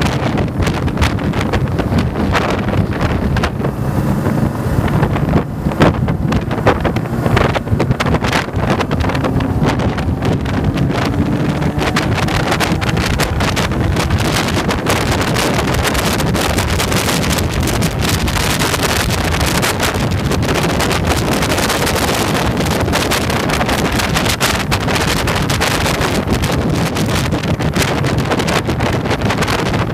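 Wind buffeting the microphone of a camera on a moving motorcycle, with the bike's engine running underneath. From about four seconds in the engine note rises slowly for several seconds as the bike accelerates.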